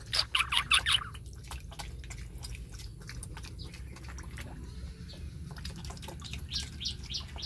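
A pig slurping and chomping watery feed with cabbage leaves from a metal bowl: a run of wet smacks and slurps, loudest in the first second.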